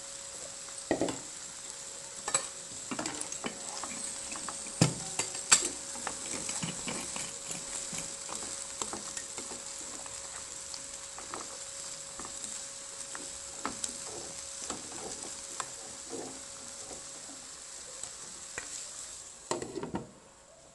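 Green beans sizzling in a frying pan while a wooden spatula stirs them, knocking and scraping against the pan, with a faint steady hum underneath. Just before the end, a glass lid clatters back onto the pan.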